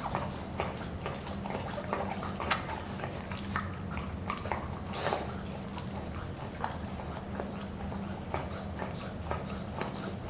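Pomsky puppy licking and chewing at a rubber Kong Extreme toy stuffed with mashed sweet potato: irregular wet smacks and clicks, over a steady low hum.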